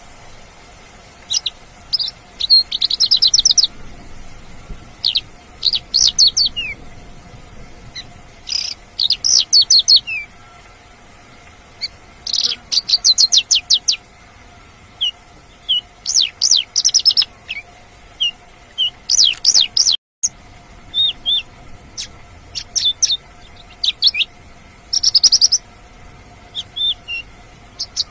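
Mongolian lark singing: bursts of rapid trilled notes and short chirps, phrase after phrase with short pauses between, over a faint steady hum. The sound drops out completely for a moment about twenty seconds in.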